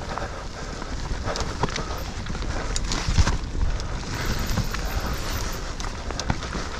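Mountain bike ridden fast down a wooded dirt trail: a steady rumble of tyres on dirt and wind on the microphone, with frequent knocks and rattles from the bike over the rough ground, the loudest about three seconds in.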